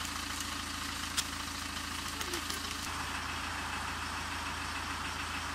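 An engine idling steadily, giving a low, even hum, with a faint click about a second in.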